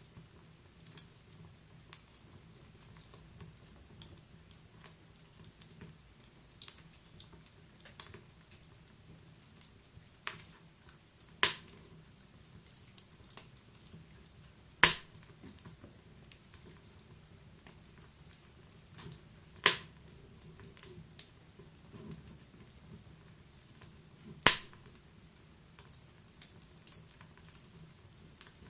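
Wood fire burning inside a stove, crackling with irregular sharp pops and snaps over a faint low rumble of the flames; four pops stand out as much louder than the rest.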